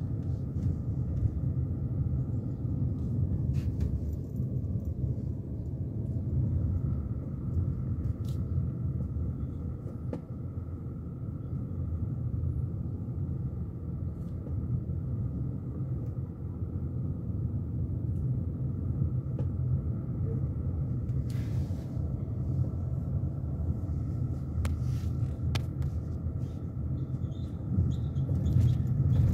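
Steady low rumble of engine and tyres heard inside a moving car, with a few faint brief clicks, growing slightly louder near the end.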